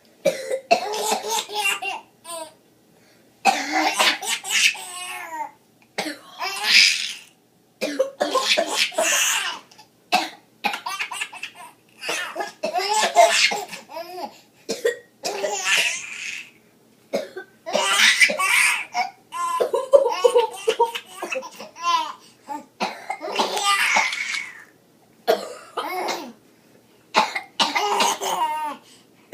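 A baby boy laughing in fits as his sister coughs, the coughs and laughs coming in turn over and over in short bursts with brief pauses between.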